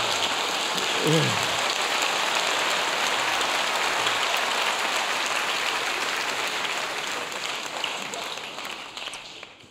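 Theatre audience applauding, with one voice calling out about a second in; the applause fades away near the end.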